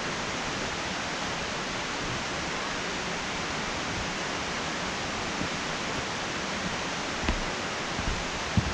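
Steady, even rush of water noise. A few soft footsteps on the trail come near the end.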